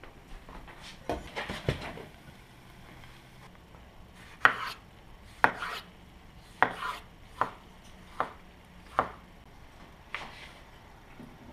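Chef's knife chopping a tomato on a wooden cutting board: about seven separate sharp strikes on the board, roughly one a second. A cluster of lighter knocks comes in the first two seconds.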